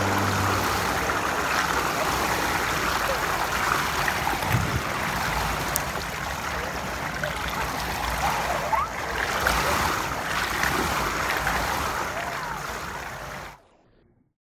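Pool water splashing and lapping as a person swims along the edge of the pool. The sound cuts off suddenly near the end.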